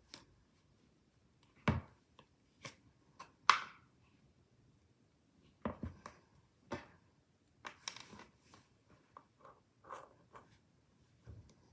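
Hands handling slime containers and packaging: irregular clicks, taps and crinkly rustles, with a few louder knocks about two and three and a half seconds in.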